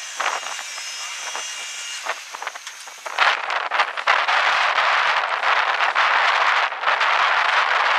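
Off-road race buggy's engine near the microphone. After a few scattered short blips, it rises suddenly to a loud, steady rush about three seconds in and keeps running as the buggy pulls past.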